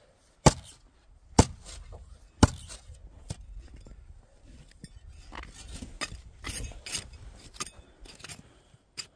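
A spade chopping into frozen ground: three sharp strikes in the first two and a half seconds, then quieter scraping and scuffing of soil.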